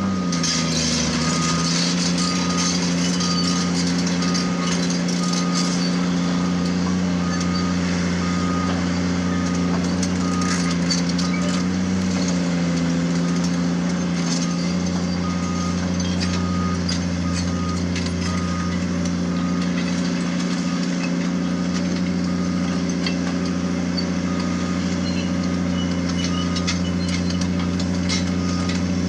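Caterpillar hydraulic excavator's diesel engine running under load while its travel alarm beeps steadily, about one and a half beeps a second, briefly pausing about halfway, as the machine tracks over rock; scattered clinks and clatter of the tracks and stones.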